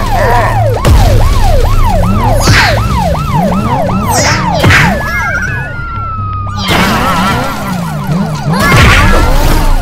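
Cartoon police siren sound effect, a fast wail rising and falling about two to three times a second, over background music. It breaks off briefly near the middle, where a long falling whistle sounds, then resumes.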